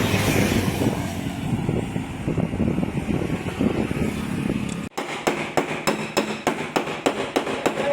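A steady rumbling noise for about five seconds, which stops abruptly. Then a hammer taps rapidly and lightly on a car's sheet-metal body panel, about four or five strikes a second, as a dent is worked out.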